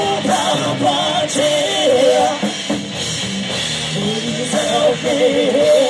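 Heavy metal band playing: a singer holds long, wavering notes over distorted electric guitars and a drum kit.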